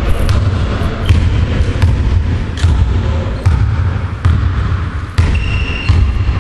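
Basketball being dribbled on a hardwood gym floor, a bounce about every eight-tenths of a second, with a brief high squeak about five seconds in.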